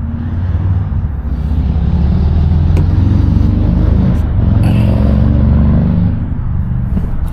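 A motor vehicle's engine running with a low rumble that swells through the middle and eases off near the end, like a vehicle nearby or passing. A few faint clicks sound over it.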